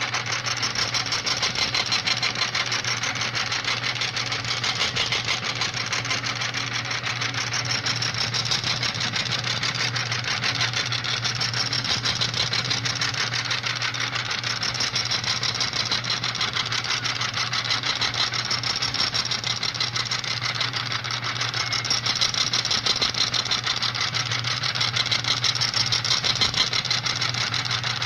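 Printer running steadily: a continuous mechanical whir with a low hum underneath and a fast, even fine chatter.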